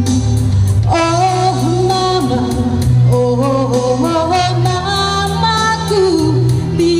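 A woman singing a Malay song into a handheld microphone over backing music with a steady beat.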